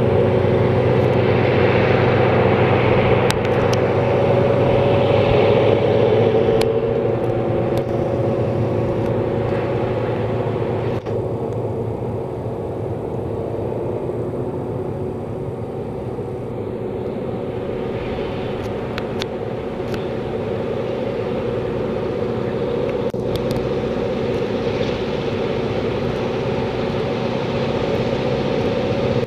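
Two HŽ series 2062 diesel locomotives (EMD G26CW, two-stroke V16) hauling a heavy freight train uphill, their engines working hard with a steady drone. It fades somewhat in the middle and grows again near the end as the locomotives come closer.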